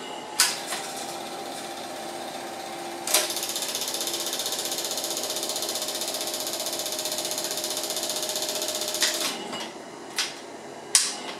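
Home cine film projector running with a fast, even mechanical clatter over a steady hum. The clatter starts with a sharp click about three seconds in and stops after about nine seconds, with a few sharp switch-like clicks near the end.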